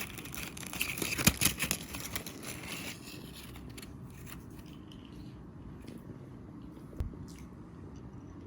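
Close-up crinkling and clicking handling sounds for the first few seconds, then a steady low background hum with a single knock about seven seconds in.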